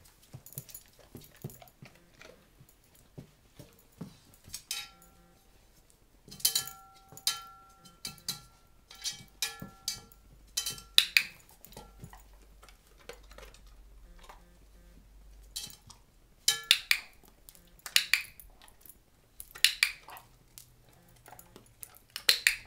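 A Weimaraner's claws and paws clinking and scraping against a metal roasting pan as it shifts its feet while standing in it: irregular clanks, some much louder than others.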